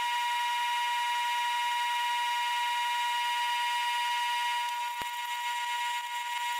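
12-inch Atlas lathe drilling a 5/16-inch hole into a spinning mild steel workpiece, giving a steady high-pitched whine. The whine weakens and wavers about four and a half seconds in, and a single sharp click follows about a second later.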